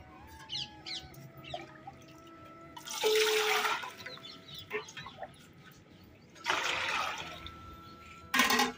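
Water poured from a small steel lota into a steel bucket, two splashing pours about three and six and a half seconds in, followed near the end by a short, louder clatter as the bucket's steel lid is handled.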